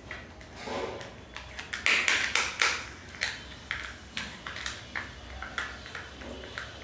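Small plastic capsule-toy pieces being handled and fitted together by hand. A quick cluster of crisp clicks and crinkling comes about two seconds in, then single clicks follow about twice a second.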